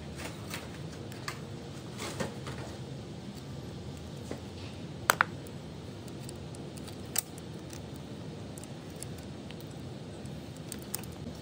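Light metallic clicks and rattles of a bicycle chain and chain tool being handled, with two sharp clicks close together about five seconds in and another about two seconds later, over a steady low hum.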